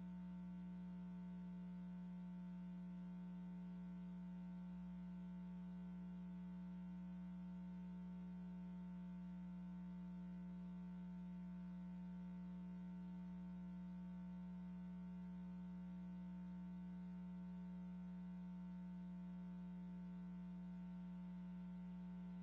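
Steady electrical hum: one low, unchanging tone with fainter higher tones above it, and no other sound.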